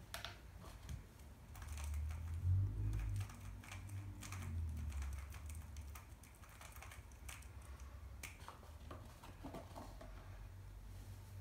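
Scattered light plastic clicks and taps from a 3x3 speedcube being picked up and handled in the hands, with a low rumble from about two to five seconds in.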